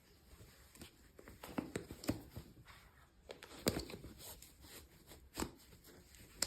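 Hands handling small plastic toy pieces and packaging: scattered light clicks, taps and rustles, with a few louder taps around the middle.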